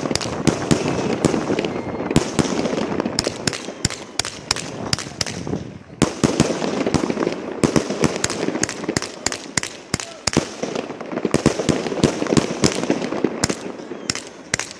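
A 49-shot consumer fireworks cake firing in rapid succession: many sharp bangs of launches and bursts, several a second, over a continuous crackle, with a brief lull about six seconds in.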